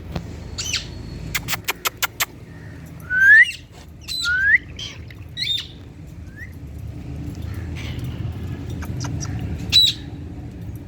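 Indian ringneck parrot squawking: short, sharp calls, the two loudest rising in pitch about three and four seconds in, with another call near the end. A quick run of five clicks comes just before the loud calls.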